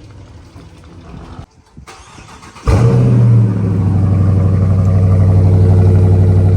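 A V8 car engine starting up. After a low rumble it fires suddenly nearly three seconds in with a brief rev flare, then settles into a loud, steady idle.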